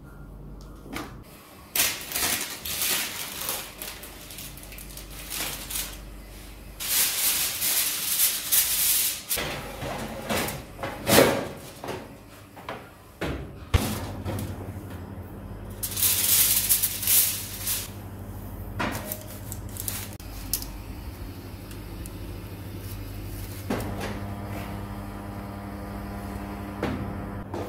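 Kitchen handling sounds: parchment paper and aluminium foil crinkling, with knocks and clatter from the oven's wire rack and door. About halfway through a click is followed by a steady low hum, with a fainter buzz near the end.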